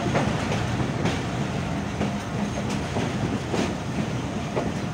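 Pakistan Railways Khyber Mail passenger train rolling over rail joints and points as it pulls into a station, heard from aboard the coach. A steady running rumble is broken by sharp wheel clacks about once a second.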